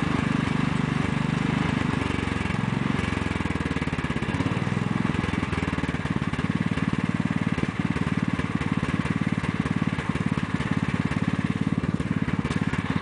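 14 hp Kohler engine of a 1993 Sears Craftsman lawn tractor running under load, its speed rising and falling for the first few seconds, then settling into a steady run with an even firing beat.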